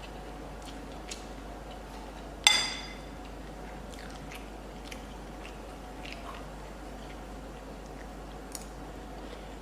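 A person eating and chewing close to the microphone, with small soft clicks of mouth and utensils. About two and a half seconds in, a utensil clinks sharply once against a dish with a brief ring, the loudest sound.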